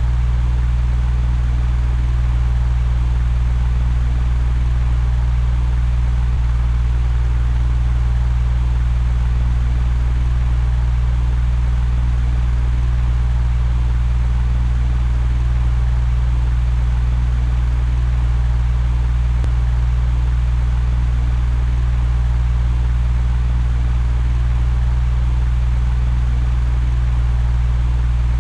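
Electric fan running steadily: a constant low hum with an even rush of air over it.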